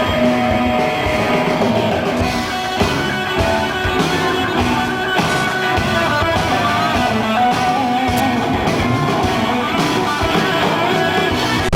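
Live rock band playing an instrumental passage: distorted electric guitars over bass and drums.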